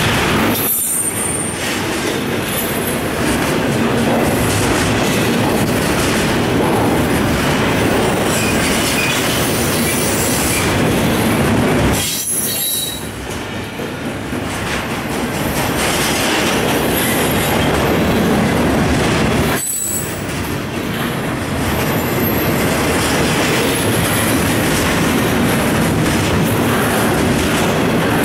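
CSX intermodal freight cars rolling past, a loud steady rush of wheel and rail noise with a few brief high-pitched wheel squeals. The level drops sharply for a moment three times.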